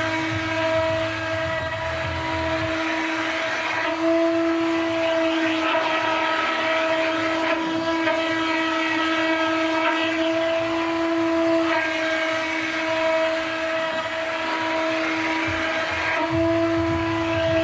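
CNC router spindle facing its MDF bed at an 18 m/min feed: a steady high whine with the cutter's hiss swelling and fading as it makes several passes across the board. A low rumble joins in during the first few seconds and again near the end.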